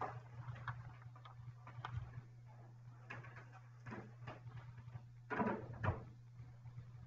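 Knocks and clatter of a laptop being set down on a table and a metal-legged lectern stand being lifted and set upside down on the table, the loudest clatter about five and a half seconds in. A steady low hum runs underneath.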